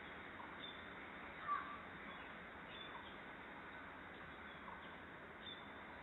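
Steady outdoor background hiss with a few short, distant bird chirps; the clearest and loudest comes about a second and a half in.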